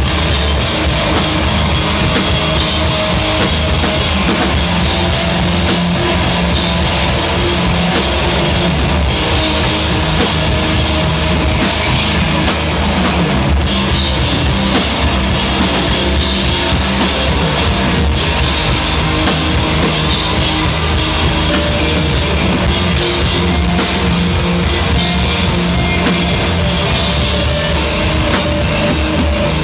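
A live rock band playing loudly and without a break: electric guitars through amplifiers, with a drum kit.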